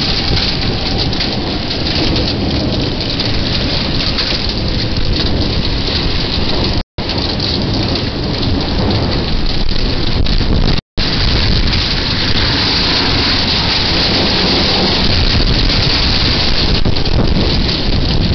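Heavy thunderstorm rain pouring down onto a driveway and parked cars: a loud, steady hiss and patter. The sound cuts out completely for an instant twice.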